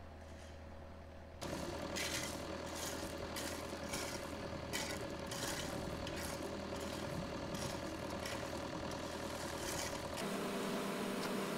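Mini excavator's engine idling steadily, with the repeated scrape of a rake dragged through loose gravel, a stroke about every two-thirds of a second. The sound changes abruptly a little over a second in and again near the end.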